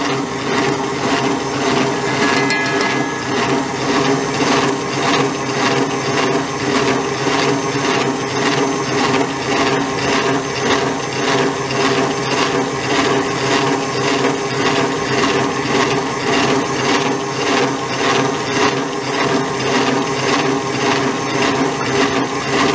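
Electric stand mixer running steadily, its wire whisk beating cake batter in a stainless steel bowl, with an even pulse about two or three times a second.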